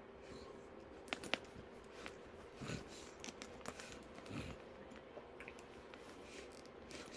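Faint handling of a handbag and its packaging: two sharp clicks a little over a second in, then scattered soft rustles and low thumps.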